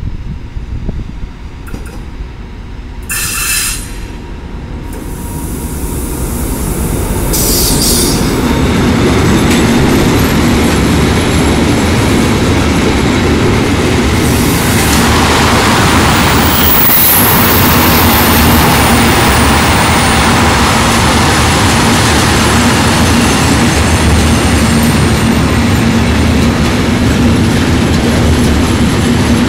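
A freight train hauled by a Vossloh G2000 BB diesel locomotive approaches and passes at speed, pulling a long train of dump wagons. The rumble builds over the first eight seconds or so. Then the wagons' wheels clatter steadily and loudly over the rails. There is a brief high tone about three seconds in.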